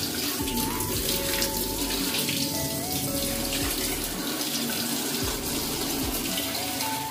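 Water running steadily from the spout of a newly fitted wall-mounted kitchen sink mixer into the sink, with background music.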